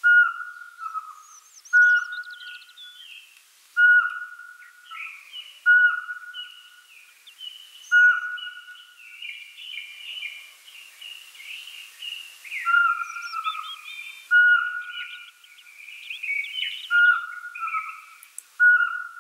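An owl gives a short whistled note about every two seconds, each dropping to a lower tail, while other birds chirp and twitter over it. The owl's notes pause for a few seconds in the middle, when the chirping is thickest.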